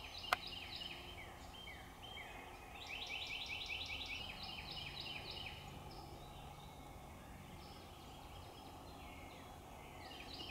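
Birds calling: rapid runs of short, high, slurred notes, busiest a few seconds in and again near the end, over a low steady outdoor hush. A single sharp click comes right at the start.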